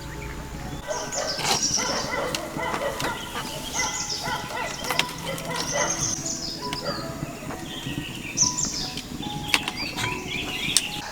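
Background music with held notes, over repeated high chirping calls and scattered sharp clicks.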